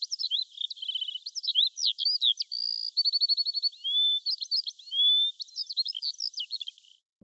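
Birds singing: a varied run of short whistles, chirps and quick trills, stopping shortly before the end.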